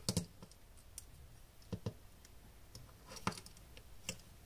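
Small sharp plastic clicks and taps as fingers handle the opened Sony AS300 action camera's plastic frame and circuit board, a handful scattered through, the loudest just after the start and a little past three seconds in.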